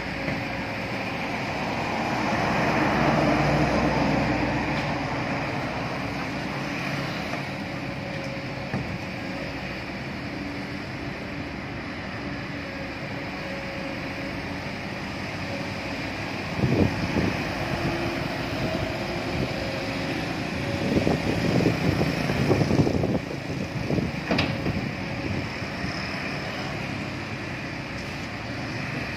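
Heavy diesel machinery running: an excavator working beside a dump truck as it loads the truck, mixed with road traffic. A vehicle swells past early on, and there are irregular louder rumbles about two-thirds of the way through.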